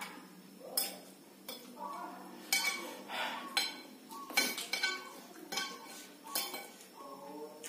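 Metal fork and spoon clinking and scraping against a ceramic plate while noodles are twirled and scooped up, in a series of irregular clinks.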